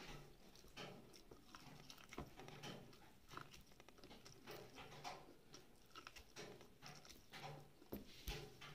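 Faint, close-up chewing and biting of corn on the cob: irregular soft crunches and mouth clicks.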